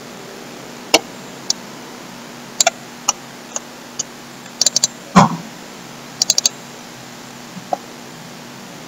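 Scattered clicks of a computer mouse and keyboard, some single and some in quick runs of three or four, with one louder thump about five seconds in. A faint steady hum runs underneath.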